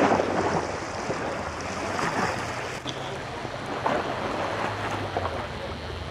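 Steady outdoor rushing noise, like wind or surf, with a low steady hum underneath and faint voices now and then.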